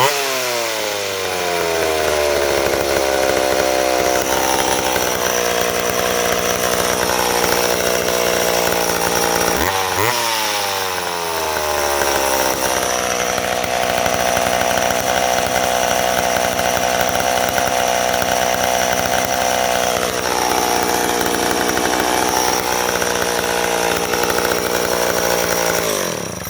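McCulloch 10-10A two-stroke chainsaw engine running, revved sharply about ten seconds in and sinking back slowly to idle each time, then shut off near the end. The slow return to idle is what the owner reads as a possibly bad crank seal on the flywheel side.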